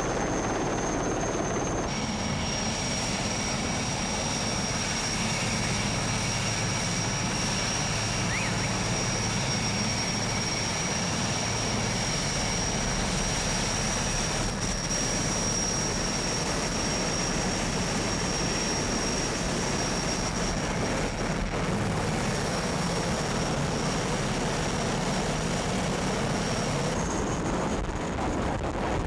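Military transport helicopter running close by: steady rotor and engine noise with a high, steady turbine whine.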